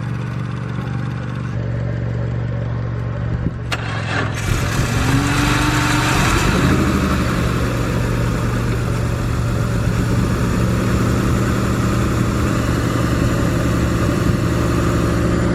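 Car engine idling just after catching on a jump start. About four and a half seconds in it grows louder, with a brief rise in pitch soon after, and then runs on steadily.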